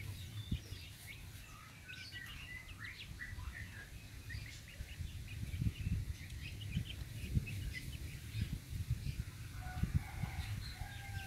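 Many short, high chirps and peeps from birds, scattered throughout, over irregular low thumps and rumble.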